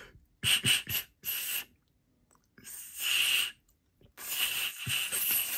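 Breathy puffs of air blown into a small metal Billet Spin keychain whistle: two short blows, a longer one, then a long blow near the end. Each is a hiss with only a faint airy tone, not a clear whistle, because the blower has not yet found the technique.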